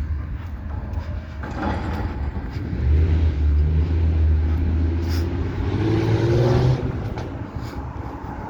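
Diesel engine of heavy demolition equipment working under load, revving up for several seconds in the middle and dropping back, with a whine that rises then falls near the end of the revving and occasional faint knocks.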